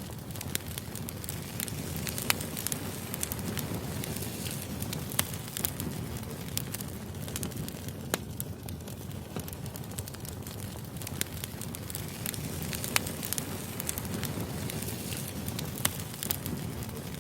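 Wood fire burning: a steady low rush with light crackling and sharp pops every few seconds.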